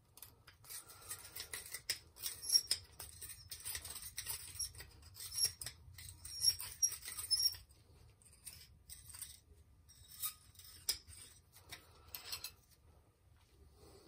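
A sight glass cutter's wheel scraping around a glass gauge tube as it is spun to score it: a scratchy rasping with small high squeaks. The rasping gives way to a few scattered clicks about halfway through.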